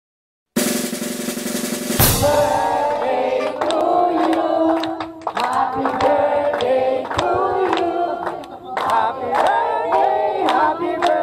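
A group singing a birthday song through microphones over a music track with drums, with people clapping along. It opens with about a second and a half of hiss before the singing starts.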